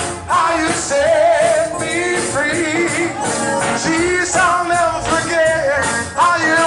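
Man singing a gospel song into a microphone, holding long, wavering notes, over a live church band with keyboard and drums.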